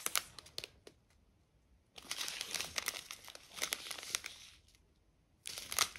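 Small clear zip-lock plastic bags of diamond painting resin drills crinkling as they are handled, in three bouts with short quiet pauses between.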